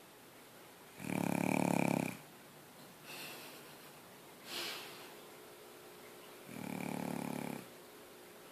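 Snoring: two loud snores, each about a second long and about five and a half seconds apart, with shorter, softer breaths between them.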